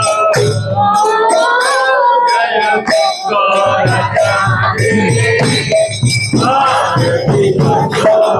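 Devotional kirtan: a male lead singer chants a melody through a microphone, with a group of devotees singing and clapping along. A steady beat of jingling percussion and drum runs underneath, at about two to three strokes a second.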